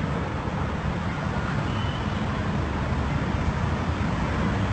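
City street traffic noise: a steady low rumble and hiss of passing vehicles.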